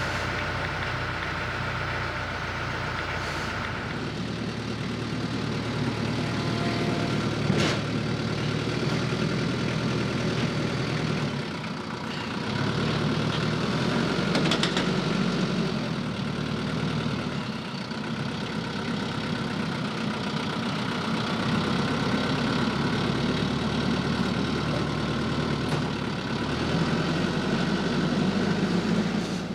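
An engine running steadily, its speed stepping up and down several times, with a single sharp click about seven and a half seconds in.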